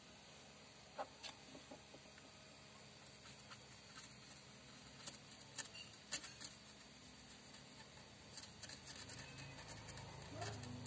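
Faint, scattered scratching and light clicks of a smartphone's glass LCD panel being handled and scraped at its edge to remove the black paint over the logo.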